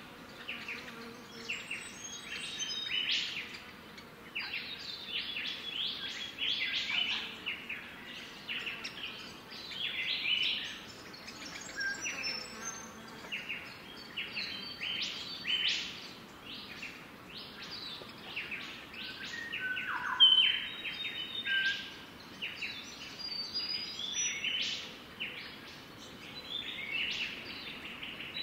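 Birds chirping and calling nonstop: a dense run of short, quick, high chirps with brief whistled notes mixed in, and one louder call sliding down in pitch about two-thirds of the way through.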